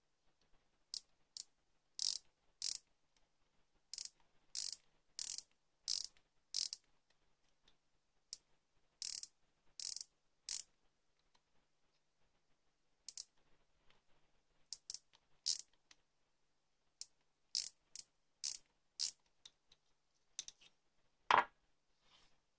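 Ratchet thimble of a digital micrometer clicking in short bursts as it is turned to close the spindle on a small turned steel pin, about twenty bursts in irregular groups. About a second before the end comes a single louder knock, like a pin set down on the wooden table.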